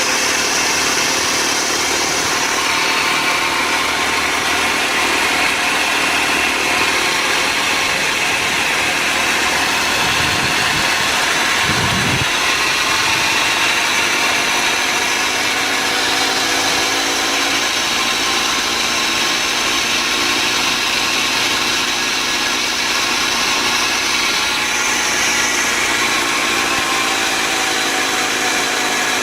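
1999 Honda Civic engine idling steadily, with a continuous noise from the accessory-belt idler pulley, the pulley noise that needs fixing.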